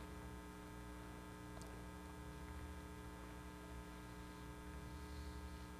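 Faint, steady electrical mains hum: a low buzz with a stack of even, unchanging tones above it over a light hiss.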